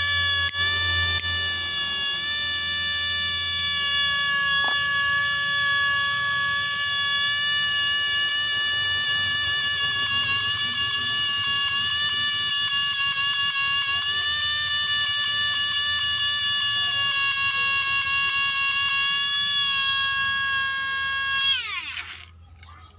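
Small racing DC motor (dinamo), freshly lubricated, spinning freely at high speed on a battery with a steady high-pitched whine. About 21 seconds in, the whine drops quickly in pitch and stops as the motor winds down.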